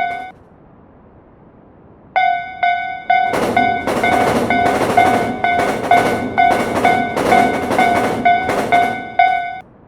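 Railroad crossing alarm bell ringing at about two strikes a second, starting about two seconds in. A second later a louder beat with a hissy edge joins in step with the bell, and both cut off shortly before the end.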